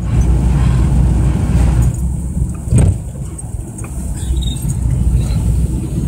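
Steady low rumble of a car's engine and tyres heard from inside the cabin while driving on a snow-covered road, with a short thump just under three seconds in.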